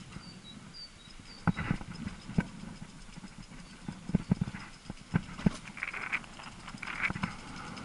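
Irregular knocks and rattles as an e-bike and its mounted camera jolt over a bumpy road, about two a second at uneven spacing, over a faint steady high whine.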